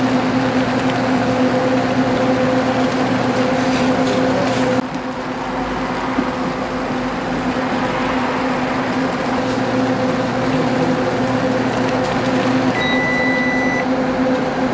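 Convenience-store ramen cooking machine running with a steady electric hum and a rushing noise as the ramen boils in its foil tray. A short high electronic beep sounds about 13 seconds in.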